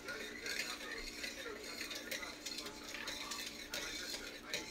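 A utensil stirring broth in a stainless steel pot, with irregular clinks and scrapes against the metal, over a steady low hum.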